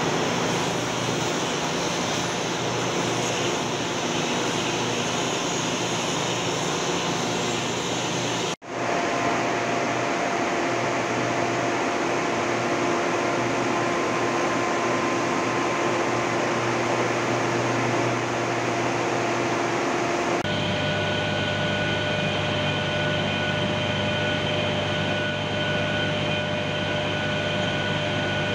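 Steady industrial machinery noise in a large workshop: a broad hiss with low hum, like big fans or ventilation running. It drops out for an instant about a third of the way in. About two-thirds in it changes abruptly to a different drone with several steady whining tones.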